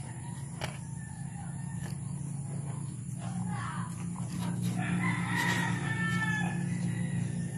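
Chickens clucking, with one long rooster crow about five seconds in, over a steady low hum.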